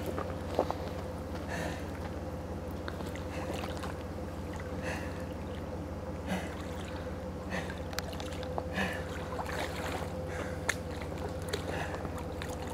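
Shallow water sloshing and splashing around a person wading and handling a captured crocodilian, with a person's breathing in short bursts, over a steady low hum.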